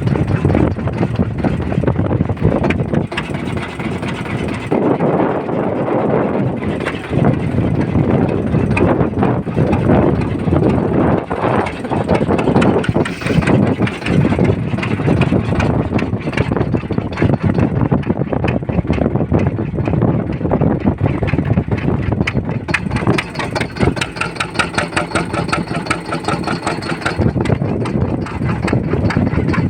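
Ferry boat's engine running steadily under way, with water and wind noise. A pitched tone with several overtones sounds over it for a few seconds about three-quarters of the way through.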